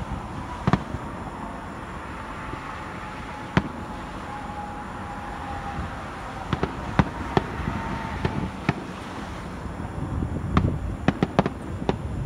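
Distant aerial fireworks shells bursting: single sharp bangs every second or few, then a quick run of crackling pops near the end.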